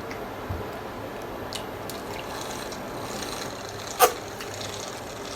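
Water being drunk from a bottle or cup: faint liquid and handling sounds, with one sharp click about four seconds in.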